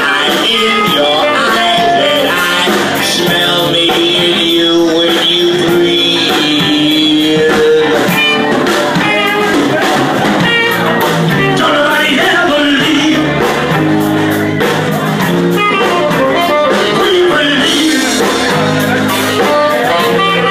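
A band playing blues-style music with guitar and keyboards, and a voice singing over it.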